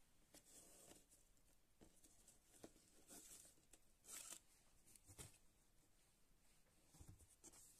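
Faint rustling and a few brief swishes as a satin ribbon is pulled loose and slid off a cardboard advent calendar box, whose doors are then swung open.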